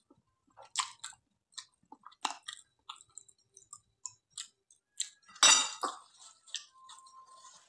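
Close mouth sounds of a person eating fried instant noodles: chewing with scattered small smacks and clicks, and one louder burst of noise about five and a half seconds in.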